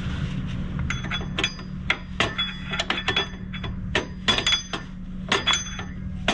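Sharp metallic clicks and clinks, about fifteen at an uneven pace, some ringing briefly. A screwdriver is turning the star-wheel adjuster of a 2006 Toyota Camry's rear drum brake to push the shoes outward, because the shoes sat too far from the drum for the parking brake to hold.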